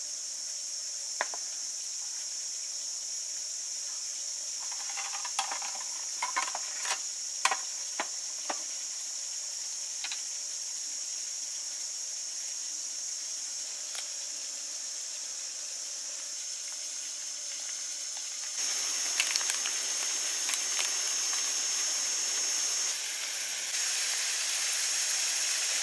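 Crab pieces frying in tamarind sauce in a wok, a steady sizzling hiss that gets louder about two-thirds through. A few light clinks and taps of plates and utensils in the first half.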